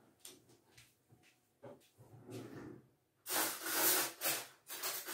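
Off-camera kitchen handling noises while a spoon is fetched: a few soft knocks, then about three seconds in a run of louder hissy rustling bursts.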